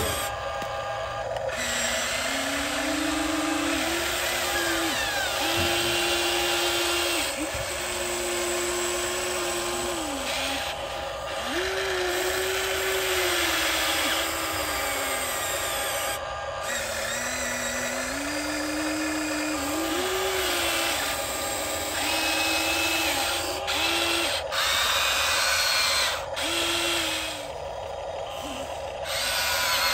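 Huina 1593 RC excavator's electric motors and gears whirring as it digs, in short runs that start and stop, the pitch rising and falling.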